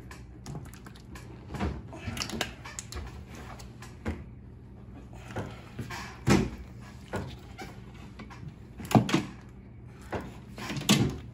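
A stretched rubber CV boot being worked by hand off the metal jaws of a CV boot expander tool onto a large CV joint: irregular rubbing and handling knocks, with sharper clacks about six, nine and eleven seconds in.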